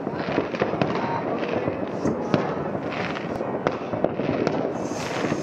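Fireworks and firecrackers going off all over a city at once: a dense, continuous crackle of many bangs and pops, with one louder bang a little after two seconds in.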